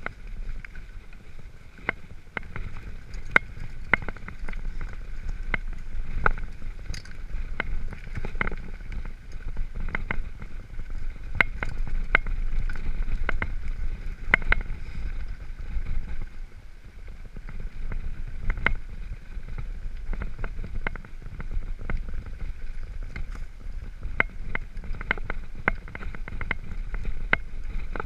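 Mountain bike rolling down a loose gravel trail: a steady low rumble of tyres on stones, with frequent sharp clicks and rattles from gravel and the bike's parts.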